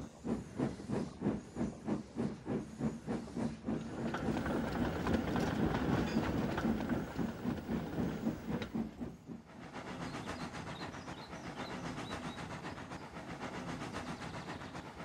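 Steam locomotive running: rhythmic chuffing at about two puffs a second that grows louder and busier after a few seconds. About nine seconds in it drops to a quieter, steady clatter of wheels on rail.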